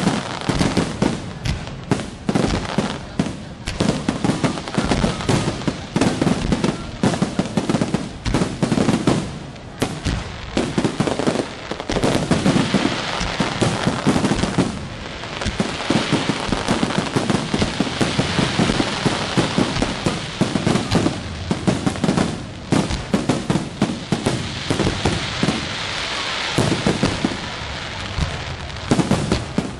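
Aerial fireworks display: a rapid, unbroken barrage of shell bursts, many bangs a second, over a dense crackling hiss.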